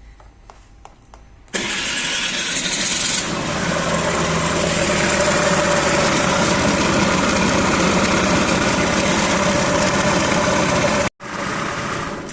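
Honda Lead scooter engine starting about a second and a half in, after a few faint clicks, then running steadily with a loud dry bearing noise. The mechanic suspects a worn crankshaft bearing, chiefly the one on the radiator side.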